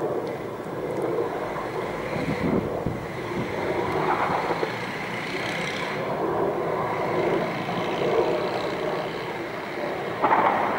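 Helicopter flying overhead: a steady drone that swells and fades slightly.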